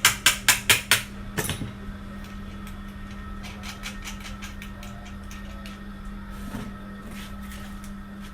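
Hand tools working on a ceiling fan's metal body while it is tightened up: a quick run of sharp metal knocks in the first second or so, then lighter, faster clicking.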